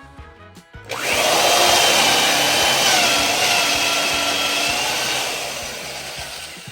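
Electric drill in a drill guide boring a 1.25-inch Forstner hole into a wooden board. The motor whine and cutting noise start suddenly about a second in, the pitch dips slightly under load, and the sound tapers off toward the end.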